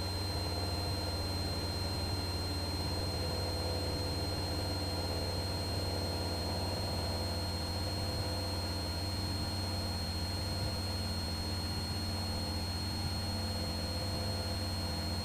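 Cessna 172's piston engine and propeller droning steadily inside the cockpit, an even low hum with no change in power, with a faint steady high whine over it.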